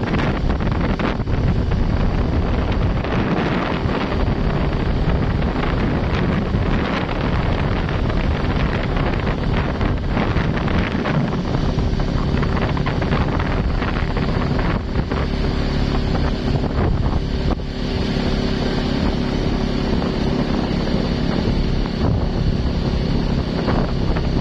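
Wind buffeting the microphone over the steady engine and road noise of a vehicle moving at speed, with a low engine hum growing stronger in the second half.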